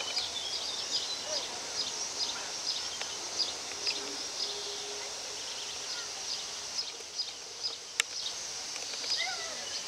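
Outdoor ambience with short, high chirps repeating about two to three times a second throughout. There is one sharp click about eight seconds in, and lower wavering calls come in near the end.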